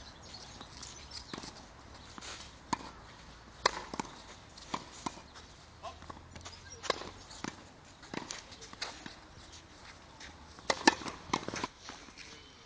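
Tennis balls struck by a racket and bouncing on a clay court: sharp pops at irregular intervals, a few in quick clusters.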